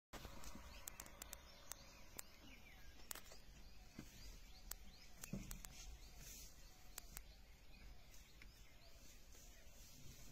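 Faint outdoor ambience: a low steady hiss with repeated short, high chirps and scattered sharp clicks.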